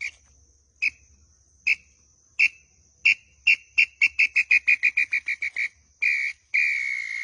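A tinamou (nambu) call whistle blown in imitation of the bird: single whistled notes about a second apart that speed up into a quick run of short notes and end in two longer notes. A steady cricket trill runs underneath.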